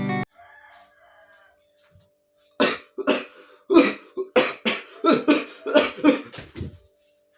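A person coughing in a fit: a rapid run of about a dozen coughs, starting about two and a half seconds in and lasting some four seconds.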